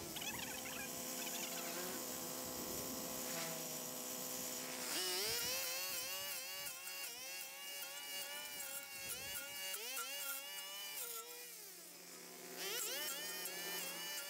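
Small engine of a garden power tool running, its pitch steady at first, then revving up sharply about five seconds in and rising and falling under changing load, dropping back briefly near the end before revving up again.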